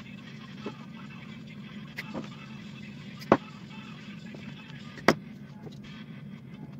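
A few sharp clicks and taps from wires being handled and worked with a hand wire stripper, the loudest about three and five seconds in, over a steady low hum.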